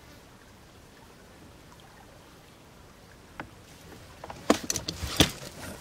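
Fishing gear being handled in a small boat: a single click a little past three seconds in, then a quick run of sharp knocks and clatter near the end, two of them the loudest.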